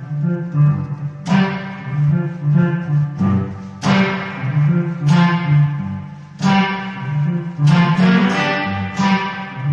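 PRS electric guitar played solo, with strummed chords struck about every second and a quarter. The notes ring on between strums over a moving bass line.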